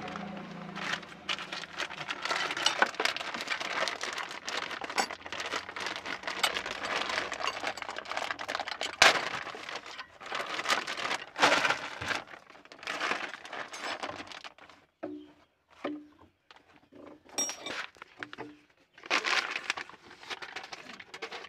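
Irregular rustling and scraping with scattered metal clicks and clinks from hands and tools working around an engine's camshaft and timing area, busiest in the first two-thirds and sparser towards the end.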